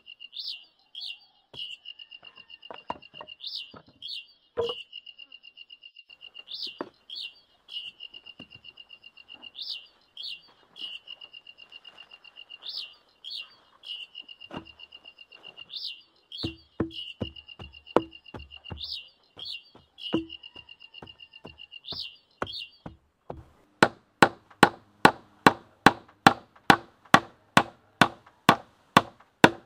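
Hand-tool strikes on a bamboo post. Scattered knocks turn into a run of blows about two-thirds of the way in, then become a loud, rapid, regular run at about three strikes a second. Under the first part a high, steady trill swells about every three seconds.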